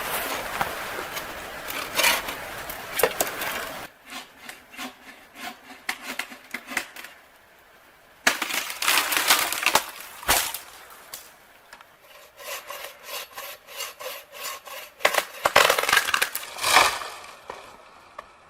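Wood being worked by hand: repeated scraping strokes and sharp cracks in several separate bursts.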